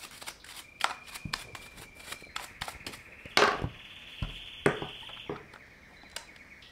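Scattered clicks and knocks of a small battery pruning chainsaw's plastic and metal parts being handled during cleaning, with the loudest knocks about three and a half and four and a half seconds in. A thin steady high whine sits underneath for most of the time.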